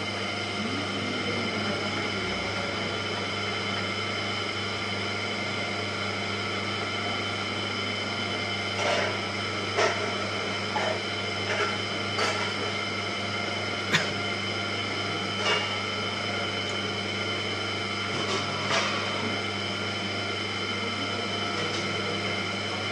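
Electric motor of a potter's wheel running steadily, a hum with several fixed whining tones over it. Through the middle stretch a scatter of short light knocks and clicks sounds over the running wheel.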